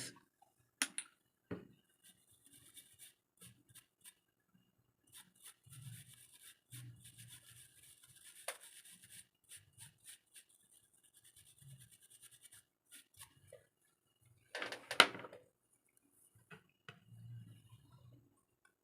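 Faint scrubbing and rubbing on a phone circuit board as the freshly soldered charging-pin joints are cleaned with PU reducer solvent, with scattered light clicks. A single louder knock comes about fifteen seconds in.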